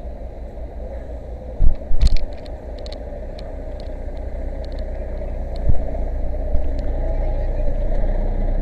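Fire engine's motor running with a steady low drone that grows gradually louder over the second half. Two loud knocks come about two seconds in, and a few light clicks follow.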